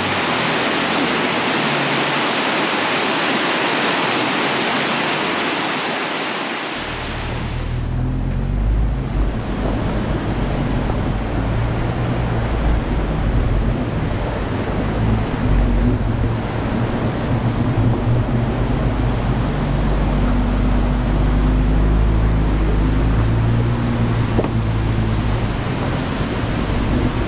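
Rushing mountain stream water for the first seven seconds or so. It cuts off abruptly and gives way to a Jeep Wrangler driving a rough, wet trail: a steady low engine drone with tyre and wind rumble, heard from a camera mounted on the vehicle.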